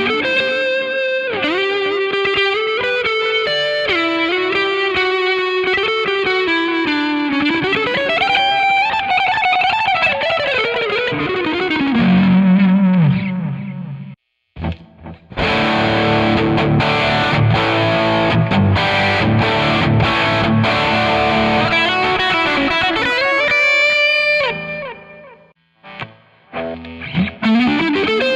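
Electric guitar played through a Zoom G5n multi-effects processor with a distorted tone, playing a lead line with sliding, bending notes. The playing breaks off briefly about halfway through and again near the end.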